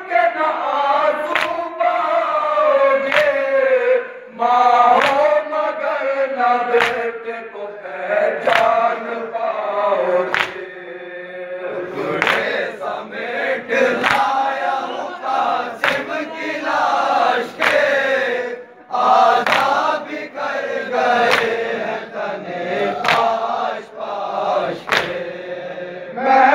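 A crowd of men chanting a nauha (a mourning lament) in unison, with sharp hand slaps on the chest (matam) at a steady beat about every one and a half to two seconds. The singing thins briefly about halfway through.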